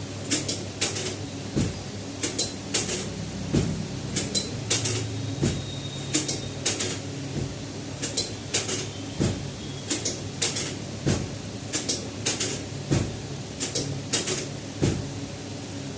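A run of sharp clicks and knocks, one to two a second and often in close pairs, over a steady low hum.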